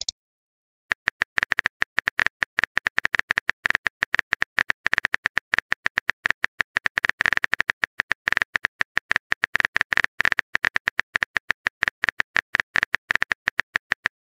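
Simulated phone-keyboard tap clicks from a texting-story app as a message is typed out, letter by letter. It is a quick, uneven run of short clicks, several a second, starting about a second in.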